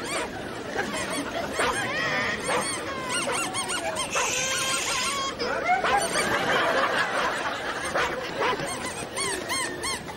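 Busy funfair ambience: a crowd's mixed voices with many short, high overlapping calls and squeals.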